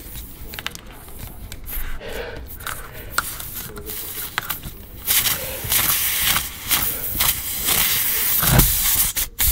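Spiral reamer of a tyre plug kit scraping and twisting in a nail hole in a car tyre's tread, then, about five seconds in, a loud steady hiss of air escaping from the tyre through the reamed hole.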